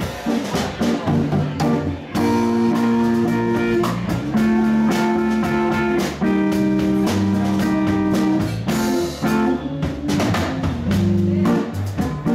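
Live band playing amplified music: electric guitar over a drum kit, with steady drum hits under held guitar notes.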